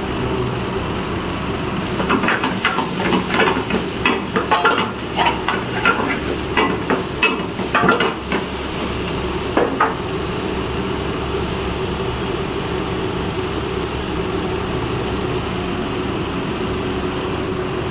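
A metal ladle scrapes and knocks in a kadhai as chicken cooks and sizzles over a steady hum. The scraping stops about ten seconds in, leaving only the sizzle and hum.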